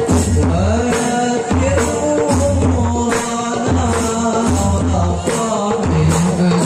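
Hadroh ensemble performing a sholawat: a male voice sings a melody through a microphone over rebana frame drums beating a rhythm.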